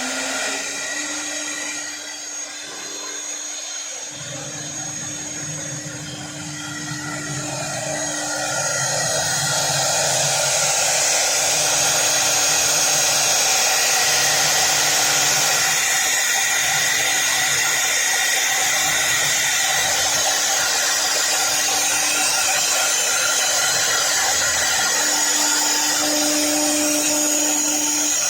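Mixed CNC router at work: a steady machine whine with a hiss that grows louder over the first several seconds, then holds steady.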